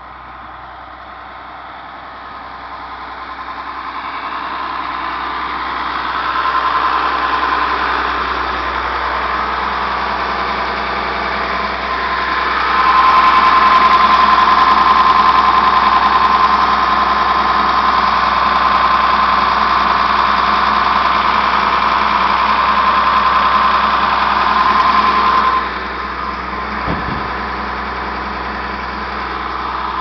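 A school bus's diesel engine idling steadily, with a steady high whine over its hum. It grows louder as the engine is approached and drops off suddenly near the end, with a single knock shortly after.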